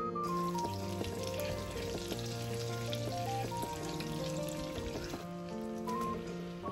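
Butter sizzling as it melts in a frying pan, under background music. Near the end, sliced onions are tipped into the hot butter.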